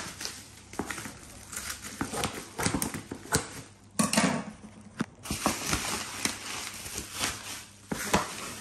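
Scissors snipping through packing tape and bubble wrap, with the plastic wrap crinkling and rustling as the parcel is handled; a louder knock about four seconds in.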